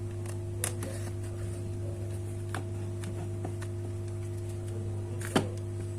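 Steady electrical hum with a few small clicks and taps from work at a repair bench, the sharpest about five seconds in.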